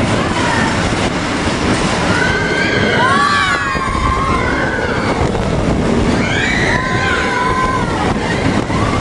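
Roller coaster train running along its track with a steady rumble of wheels and wind. Over it come riders' high, wavering screams, a few seconds in and again later on.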